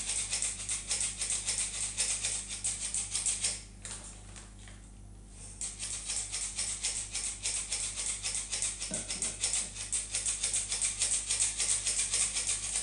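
Small hand-held metal sifter clicking rapidly as its squeeze handle is worked to sift bitter cocoa powder, about five or six clicks a second, with a pause of about two seconds near four seconds in.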